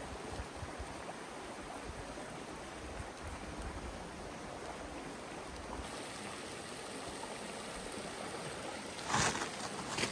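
River water flowing, a steady rushing. About nine seconds in a brief, louder rustle rises over it.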